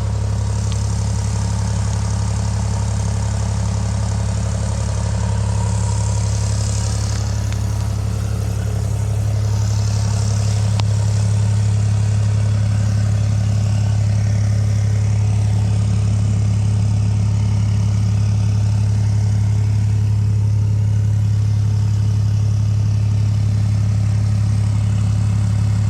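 New Holland LX865 skid-steer loader's diesel engine running steadily at idle, a little louder from about nine seconds in.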